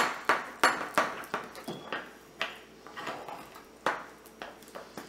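Metal spoon scraping and clinking against a ceramic bowl while stirring thick black royal icing, in irregular strokes about two or three a second at first, spacing out later.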